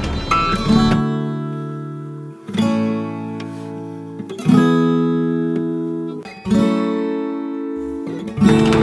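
Background music: acoustic guitar chords strummed and left to ring, a new chord about every two seconds.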